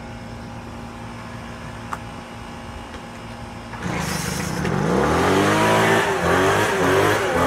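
Gas Craftsman leaf blower's two-stroke engine catches about halfway through, revs up with a rising pitch, then keeps running loudly.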